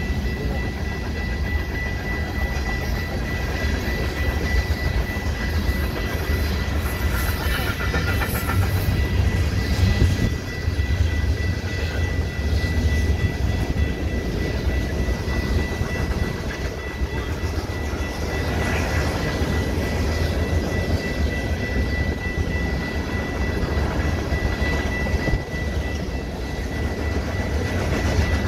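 Freight train's tank cars and covered hoppers rolling steadily past, a deep continuous rumble of steel wheels on rail, with a thin steady high tone throughout.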